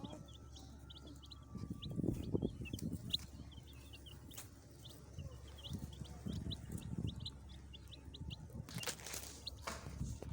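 Baby chicks peeping: many short, high chirps in quick succession, with a few lower, louder sounds mixed in about two seconds in and again about six seconds in.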